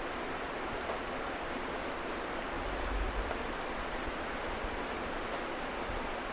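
A bird giving short, very high chirps, six of them about a second apart, each dropping slightly in pitch, over a steady background hiss.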